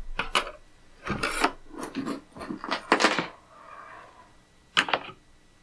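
Metal strap hinges and wood screws being handled and slid over a wooden board: about five short scraping, rubbing strokes, with a faint metallic ring in the middle.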